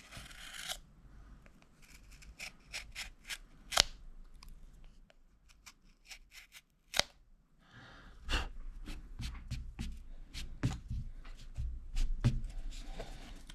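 Solognac Axis 75 folding knife cutting through material under light pressure: a scatter of short, sharp cutting and scraping clicks, sparse at first and busier with a steady rustle from about halfway.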